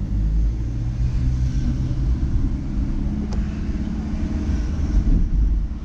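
Car engine running and tyre noise while driving, heard from inside the moving car, with a single sharp click about three seconds in.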